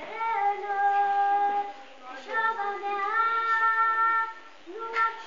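A child singing, holding two long, steady notes and starting a third near the end.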